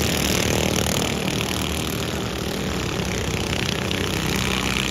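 Several junior sprint cars' small engines running together at racing speed, their pitches rising and falling as the cars go through the turns.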